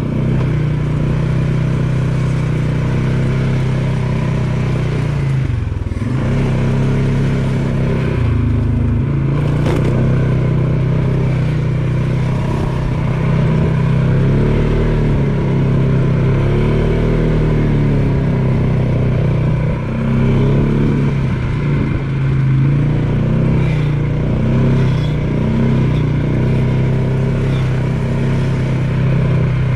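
ATV engine running under way, its pitch rising and falling with the throttle, easing off briefly about six seconds in and again around nine seconds in.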